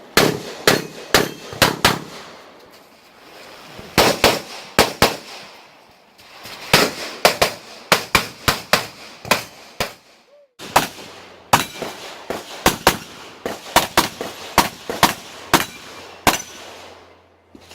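Open-division STI 2011 race pistol fired rapidly in quick pairs and strings of shots, several dozen in all, with short pauses between groups.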